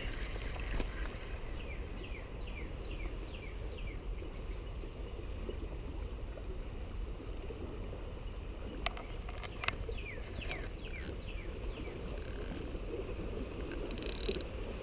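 Quiet outdoor ambience: a steady low rumble of wind and water, with strings of short falling bird chirps near the start and again about ten seconds in. A couple of sharp clicks come from the spinning reel being handled.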